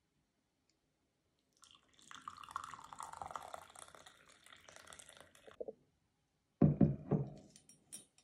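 Tea pouring from a ceramic teapot into a porcelain cup for about four seconds, a steady splashing stream. Then the teapot is set down on the table with a few loud clunks close together.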